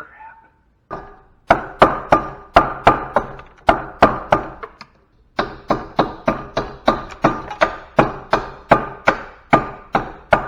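Hammer blows on a metal scrap part, knocking it apart to free the brass and copper pieces inside. The blows come about three a second in two runs with a short pause near the middle, and each one rings briefly.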